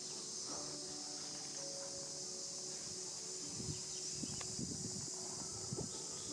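Steady high-pitched chorus of insects buzzing outdoors. In the second half come a few soft rustles and knocks on dry leaf litter.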